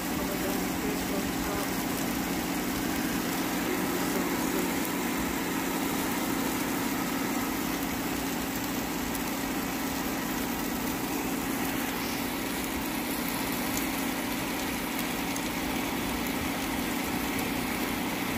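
Air fryer running: a steady fan hum that holds at one level throughout.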